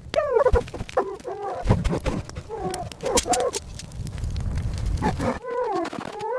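Tibetan mastiff giving a series of short pitched calls that fall in pitch, with sharp clicks and low rumbling noise between them.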